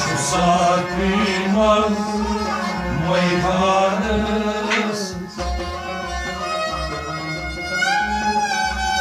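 Sufi devotional song (kalam): a melodic vocal line over a steady low drumbeat, settling into long held notes near the end.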